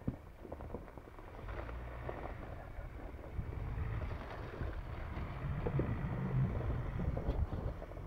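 Ford Ranger Raptor pickup driving past over rough farm ground: a low engine rumble with scattered knocks that gets louder in the second half, with wind buffeting the microphone.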